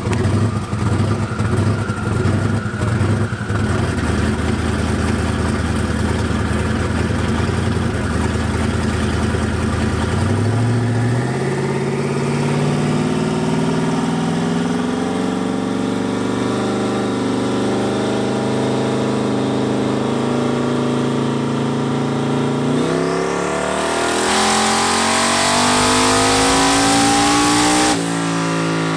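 Fox-body Mustang's engine on a chassis dyno: it runs low with an uneven beat, then from about ten seconds in the revs climb steadily as it rolls the dyno up in gear. About 23 seconds in it goes to full throttle, the pitch sweeping up fast with a loud rush, and it lifts off a second before the end with the revs falling.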